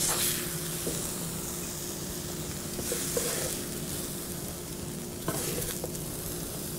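Steady sizzle of egg whites and peppers frying on a hot griddle preheated to 350 degrees, with a few light scrapes and taps of a spatula as the omelette is lifted onto a plate.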